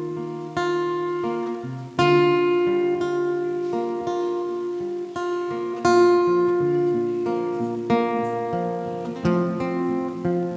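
Acoustic-electric guitar playing a slow chord intro, each chord strummed or plucked and left to ring, with a new chord every second or two.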